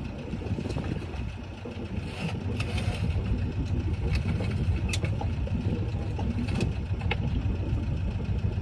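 A boat engine running steadily in a low rumble, with a few sharp clicks over it.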